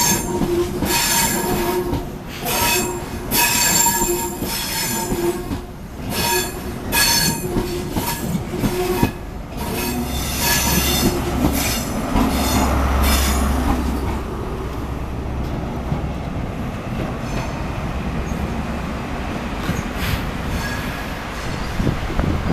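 CrossCountry HST coaches rolling past, their wheels squealing in regular bursts with a high metallic ring. About ten seconds in, the Class 43 power car's MTU diesel engine passes with a deep, steady drone, and then the train's noise settles to an even rumble as it runs away.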